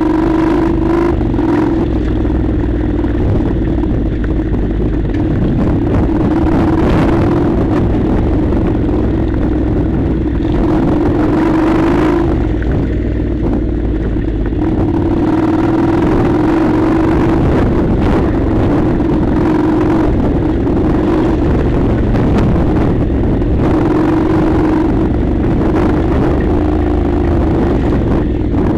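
Honda NC700's parallel-twin engine running at a steady cruising speed, with rumble and rattle from the rough dirt track.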